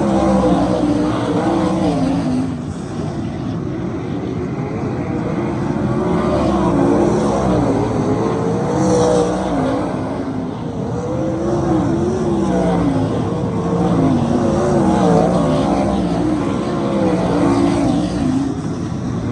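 Several 410 sprint cars racing on a dirt oval, their 410-cubic-inch V8 engines overlapping and rising and falling in pitch as they rev through the turns and down the straights.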